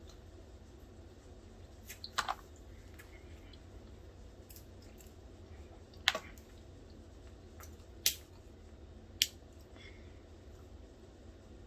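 Snow crab or lobster shell being cracked apart by hand while eating: a quick cluster of sharp snaps about two seconds in, then three single snaps a couple of seconds apart.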